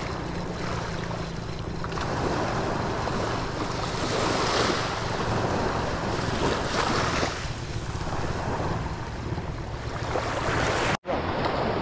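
Sea waves washing onto the shore, with wind buffeting the microphone. The surf swells twice, about four and seven seconds in, and the sound drops out for an instant near the end.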